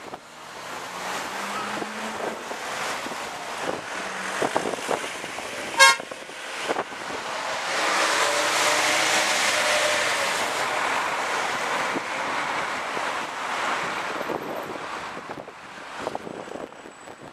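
Street traffic with a bus engine running, then one short horn toot about six seconds in. A tram then rolls past close by, its wheels and running gear swelling into a loud rush for several seconds before fading.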